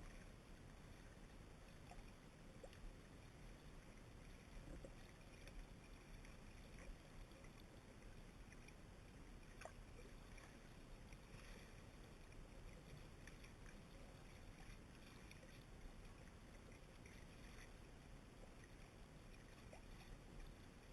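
Near silence: a faint steady hiss and low rumble with scattered soft clicks, as an action camera picks up underwater.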